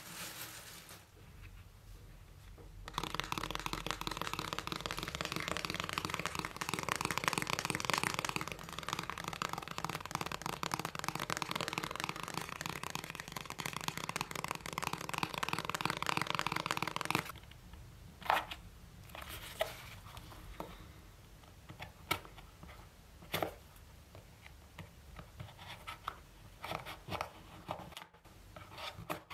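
Paper and cardboard packaging of an iPhone 13 box handled close to the microphone: a dense scratchy rustle for about fourteen seconds, then scattered light taps and clicks.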